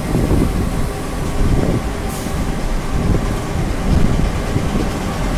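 Vintage E626 electric locomotive hauling old passenger coaches slowly along a station platform, with a steady low rumble of wheels and motors. A short hiss of air comes about two seconds in.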